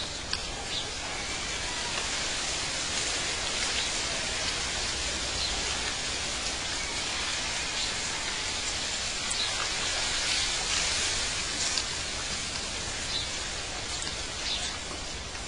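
Outdoor nature ambience: a steady rushing noise, like wind or running water, with a few faint short bird chirps scattered through it.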